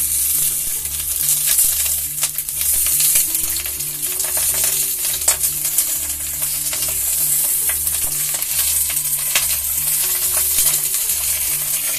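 Sausage-stuffed poblano peppers frying in hot oil in a pot: a steady sizzle, with scattered clicks as chopsticks turn the peppers against the pot.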